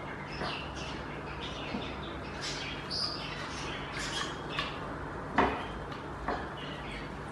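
Silicone spatula stirring and scraping a thin butter and hot-sauce mixture around a nonstick pan: soft scrapes and taps with a few short squeaks, the loudest stroke a little past halfway.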